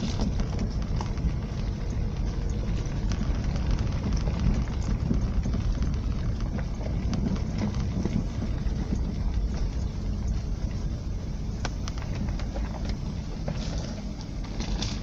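Small car driving slowly along a rough farm track, heard from inside the cabin: a steady low rumble of engine and tyres, with scattered light ticks from the track surface under the wheels.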